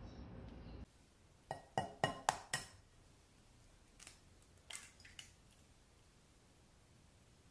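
Kitchenware clinking and knocking: a quick run of five sharp clinks, some ringing briefly, then three softer ones a couple of seconds later.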